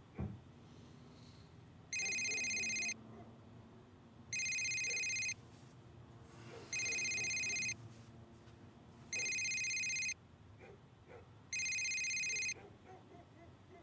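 Telephone ringing: five rings of about a second each, evenly spaced, a steady electronic tone, an incoming call that is answered right after.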